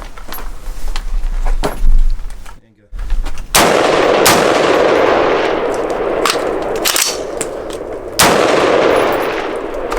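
Prema Arms (PAE) AR-15 rifle firing loud shots after being submerged in mud and rinsed, the heaviest about three and a half and eight seconds in. A stoppage during the string is cleared with tap, rack, bang.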